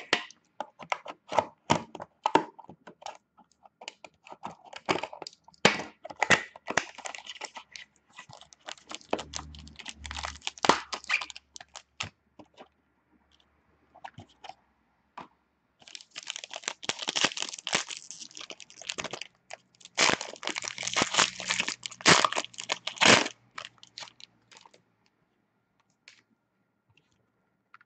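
A cardboard trading-card box being handled and opened, with scattered crackles and clicks, then after a pause a foil card pack crinkling and tearing open in two dense runs of several seconds each.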